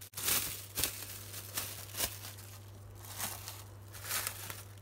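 Plastic cling film crinkling and crackling in a run of short bursts as it is pulled out and stretched over a glass baking dish.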